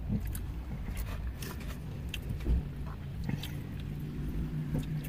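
People chewing food close to the microphone: scattered small clicks and smacks over a low steady rumble, with a steady low hum coming in about halfway.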